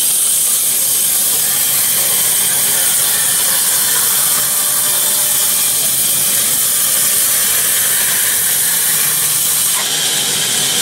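Saw mill band saw blade cutting lengthwise through a log, a loud steady high-pitched hiss of the blade in the wood with the machine running under it.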